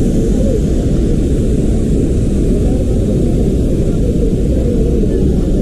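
Loud, steady rushing of the Athirappilly waterfall, a deep even roar of falling water with no breaks.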